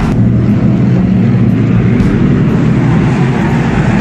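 Race car engines running on the speedway: loud, steady engine noise with no break.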